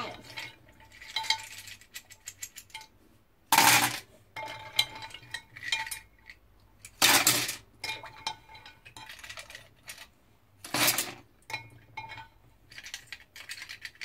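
Plastic keycaps and a wire-mesh strainer clinking and clattering against a glass jug of salt water as the caps are plunged under to knock trapped air off them. Small scattered clicks, with three louder clatters a few seconds apart.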